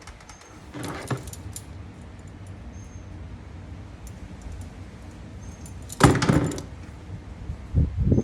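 Small metal parts and tools clinking and rattling as they are handled during wiring work, with a louder clatter about six seconds in.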